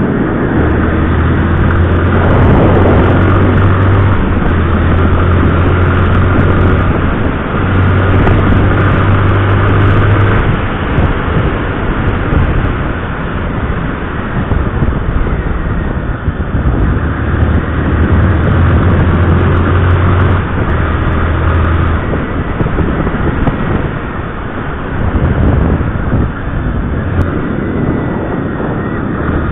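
Motorcycle engine running steadily under way, with a low, even engine note that eases off twice for a few seconds. Wind rushes over the microphone throughout.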